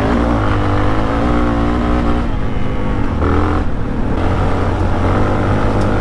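Yamaha XT660R's 660cc single-cylinder four-stroke engine running under way through Akrapovič titanium exhausts, pulling steadily. Its pitch drops briefly about two seconds in and climbs again as the throttle comes back on.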